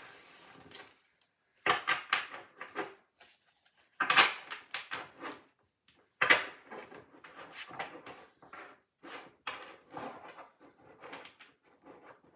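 Tarot card decks being handled: a series of sharp card rustles, taps and clacks, the strongest about two, four and six seconds in, then a run of smaller ones.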